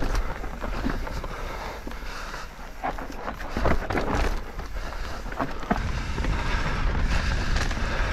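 Mountain bike descending a dirt forest singletrack: tyres rolling over dirt and roots, with short knocks and rattles from the bike, under wind rushing over the camera microphone. The wind rush grows louder about six seconds in.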